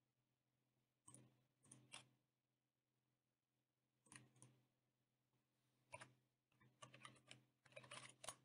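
Faint computer keyboard typing: a few separate keystrokes, then a quick run of keys near the end, over a faint steady low hum.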